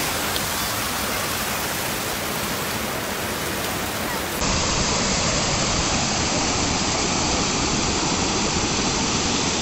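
Water spilling over a full, overflowing check dam, a steady rushing of falling water that grows a little louder about four seconds in.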